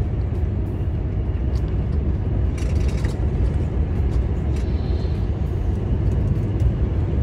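Steady low rumble of a heavy semi-trailer truck's engine and road noise while driving at speed, heard from inside the cab, with a brief hiss about two and a half seconds in.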